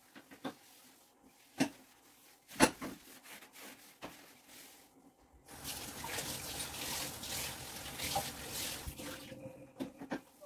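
A few sharp knocks and clicks, then water running from a tap for about three and a half seconds from about halfway through, stopping shortly before the end.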